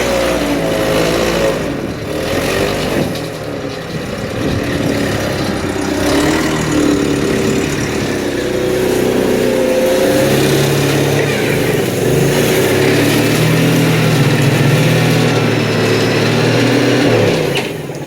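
An engine running loudly, its pitch rising and falling at first, then holding a steady drone, cutting off abruptly near the end.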